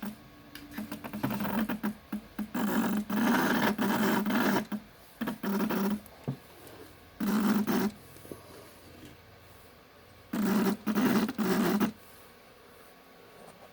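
Stepper motor of a DIY 3D-printed rotary indexer, driven by a hand-turned CNC handwheel, running in about five short bursts. Each burst is a low, pitched buzz lasting from half a second to about two seconds, and it stops each time the wheel stops.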